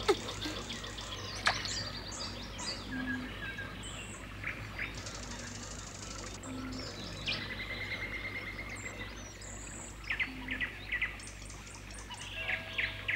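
Forest birdsong: scattered chirps, whistles and trills from several birds, with one sharp click about a second and a half in and a steady low hum underneath.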